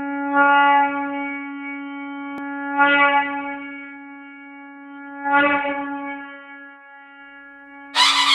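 Intro music: one long, steady horn-like blown note, with three booming swells about two and a half seconds apart. Loud full music cuts in near the end.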